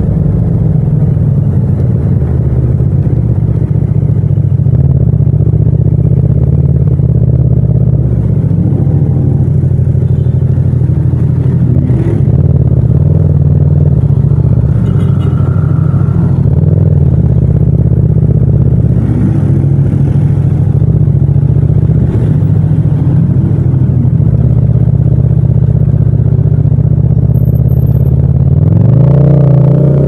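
Parallel-twin motorcycle engine running under way, recorded raw without wind noise. The engine note holds fairly steady with a few small rises and falls in pitch, then climbs as the throttle opens near the end.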